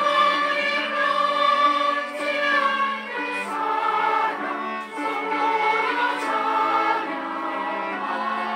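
A choir singing a Christian praise song in slow, held notes.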